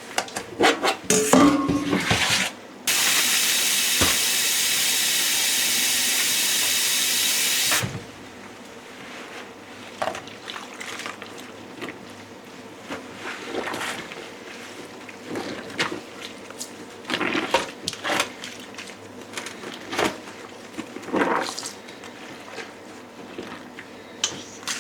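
Dishes clattering, then a kitchen tap running hard for about five seconds, starting and stopping abruptly, followed by scattered light clinks of dishes and utensils.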